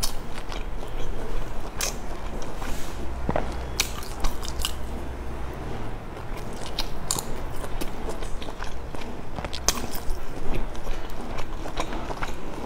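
Close-miked eating: a person biting pieces of spice-coated food off bamboo skewers and chewing, with many short, sharp, irregular mouth clicks.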